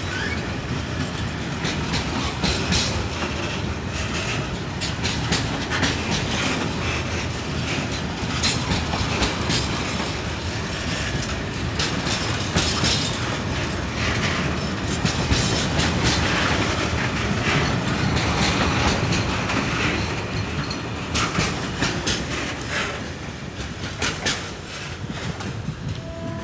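Freight wagons of a passing train rolling by at close range: a continuous rumble of steel wheels on rail with many clicks and clacks as the wheelsets cross rail joints, easing off slightly near the end as the train draws away.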